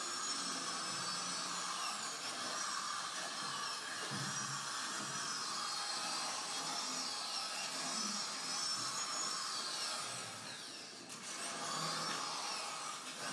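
Dense, noisy electronic sound played through loudspeakers, with warbling, sliding high tones over a grinding, drill-like noise; it dips briefly near the end.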